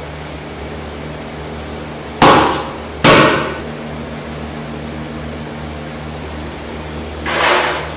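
Metal rice tray struck twice against the rim of a large metal cooking pot, two loud ringing clanks about a second apart as the rice is knocked out, over a steady low hum. Near the end a softer, longer rush of sound as the next trayful of rice is tipped in.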